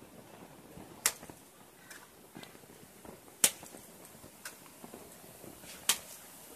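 Wet mortar flung from a brick trowel slapping against a masonry wall as a rough spatter coat (kaprotan) before plastering: three sharp slaps about two and a half seconds apart, with fainter knocks between.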